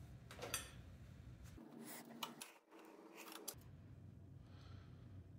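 Faint handling noises from bicycle parts being worked on in a workstand: a few light clicks and rubs over quiet room tone.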